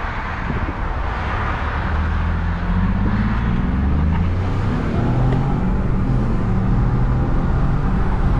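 Ford Expedition's twin-turbo 3.5-litre EcoBoost V6 pulling on the road, its engine note climbing under acceleration and changing pitch partway through, with a steady rush of noise over it.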